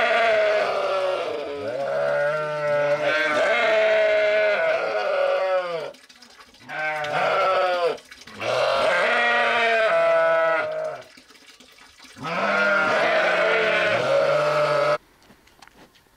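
Several sheep bleating together in long, wavering, overlapping calls, in about four bouts with short pauses between them, cutting off suddenly near the end.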